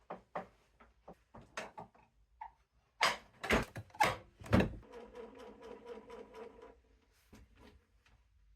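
Series of wooden knocks and clunks from boards being handled, the loudest three about three, three and a half and four and a half seconds in, followed by a short steady whirring sound of under two seconds.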